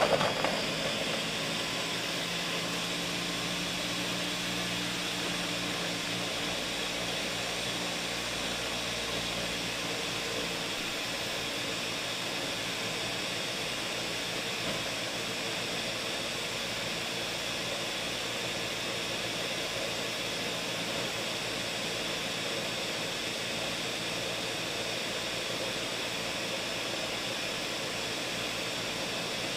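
Ninja countertop blender running at high speed, blending frozen strawberries, leafy greens and almond milk into a thick smoothie: a steady whirring noise, louder for the first second as the motor starts. A lower tone underneath fades out within about the first ten seconds.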